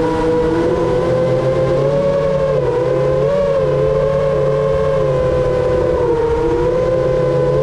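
Motors and propellers of a 7-inch iFlight Chimera7 Pro FPV quadcopter whining in flight, the pitch rising and falling with throttle and dipping briefly about two and a half seconds in and again about six seconds in, over a steady rush of air.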